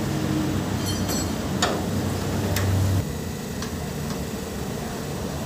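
Socket wrench ticking in scattered clicks as a bolt is tightened on a bonnet gas-strut bracket. A steady low hum runs behind it and stops suddenly about three seconds in.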